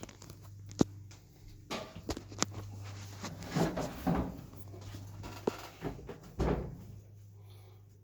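Plastic clicks and knocks of wire-harness connectors being worked loose from a Samsung dryer's control board, over a low steady hum.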